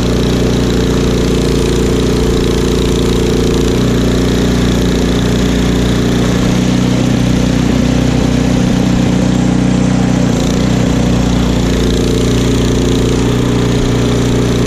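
Craftsman two-stage snowblower's single-cylinder engine running steadily under load, with the rush of the auger and impeller throwing snow. The engine's pitch shifts slightly a couple of times as the load changes.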